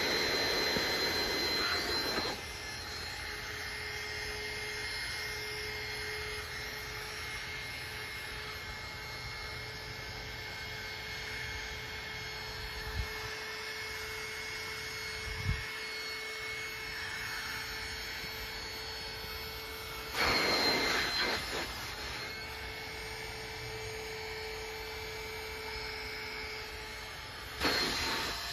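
A small electric motor running steadily with a faint whine, with a louder rushing hiss for about two seconds at the start, again about two-thirds of the way through and near the end.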